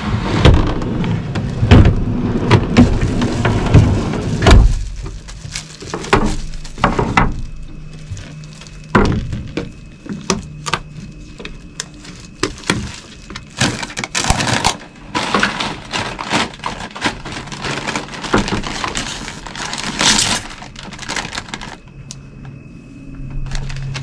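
Crinkly plastic food packaging being handled, a bag of pitas and a bag of barbecue chips, crackling and rustling in two long stretches near the start and in the second half, with scattered small clicks between them.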